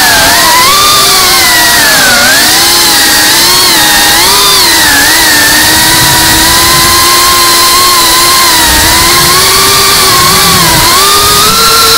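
GEPRC Cinelog 35 cinewhoop's brushless motors and propellers whining loudly, the pitch rising and dipping with throttle changes, holding steadier through the middle and climbing again near the end.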